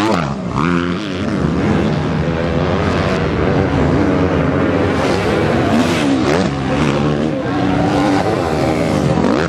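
Motocross bike engines revving hard, more than one bike at once, the pitch dropping and climbing again several times as the riders open and close the throttle.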